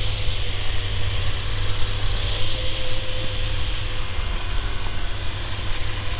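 Steady outdoor background noise, a low rumble with a hiss over it and no distinct events.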